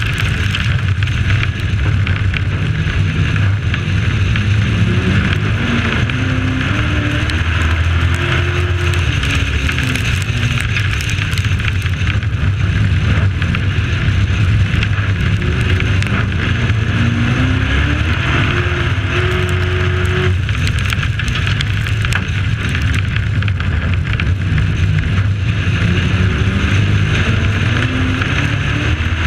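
Race truck engine at racing speed, heard from on board: its pitch climbs several times on the straights and falls off into the turns. A steady rushing noise of wind and tyres runs under it.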